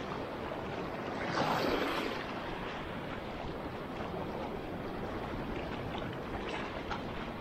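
Small wavelets lapping and washing onto a sandy shore at the edge of a shallow lagoon channel, a steady wash of water that swells once, about a second and a half in.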